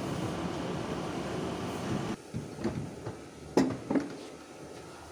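Sharp knocks and clicks of a car's plastic bumper being worked loose and pulled off, about five of them in quick succession, the loudest just past the middle. A steady background noise drops away abruptly about two seconds in.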